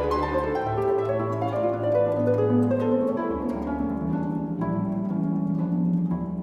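Background instrumental music: quick plucked string notes over held low notes.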